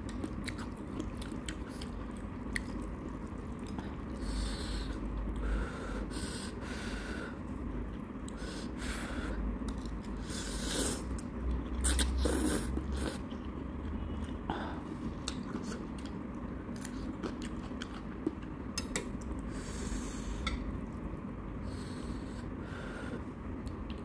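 Close-miked chewing and biting of instant ramen noodles, with many small wet mouth clicks. A louder stretch about halfway through as a mouthful of noodles is drawn in.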